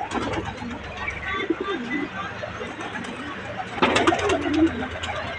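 Pigeons cooing, several low wavering coos one after another, with a short burst of sharp clattering about four seconds in.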